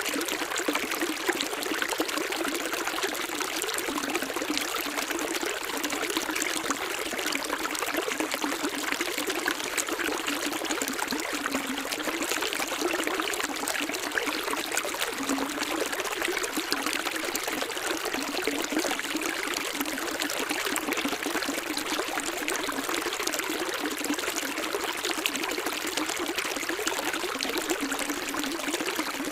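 Running water of a small stream, a steady trickling and splashing flow with no pauses and no deep rumble.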